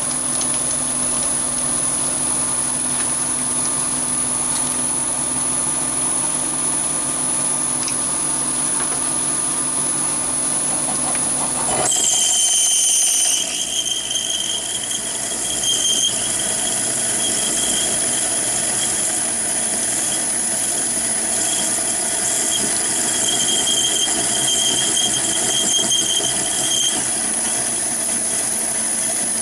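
Chinese mini lathe drilling hard steel with a large HSS twist drill, running steadily with a high squeal. About twelve seconds in, the low rumble drops away and a high screeching tone comes and goes. The owner puts the screech down to the drive belt slipping on the pulleys.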